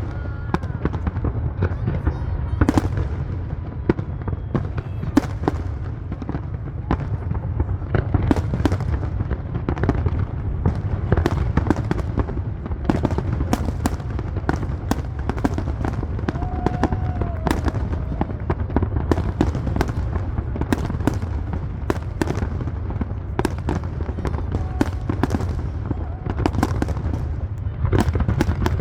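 Fireworks display: a continuous barrage of bangs and crackling bursts, several a second, over a steady low rumble.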